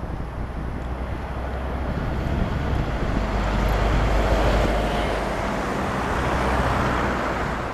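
Open-top double-decker sightseeing bus driving past, its engine humming steadily and growing louder to a peak about halfway through, then easing off as it moves away.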